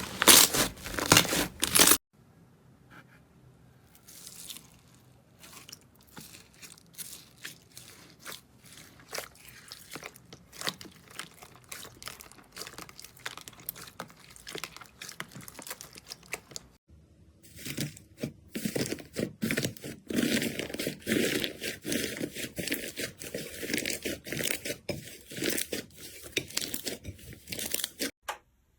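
Slime being squeezed and pressed by hand, giving quick irregular crackling and crunching pops. Loud crunching at first stops suddenly for fainter crackling, and more than halfway through it turns louder and denser again.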